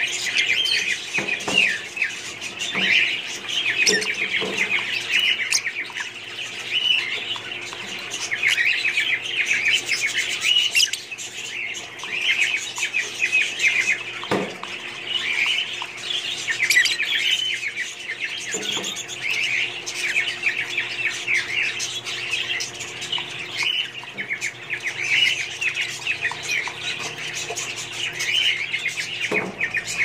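A colony of Fischer's lovebirds chattering: dense, continuous high-pitched chirps and squawks from many birds at once, with a few scattered clicks.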